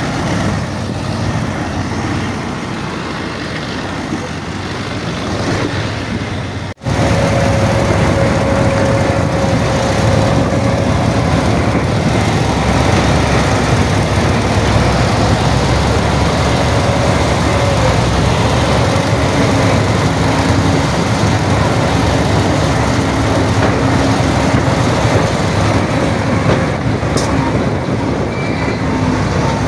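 Heavy diesel machinery running steadily, with a momentary break about seven seconds in, after which it is louder.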